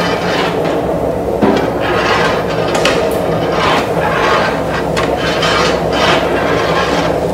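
Metal shovels and wooden paddles scraping against a giant steel cooking vessel as a large heap of sliced onions is turned and tossed. The scraping strokes repeat about once a second over a steady low hum.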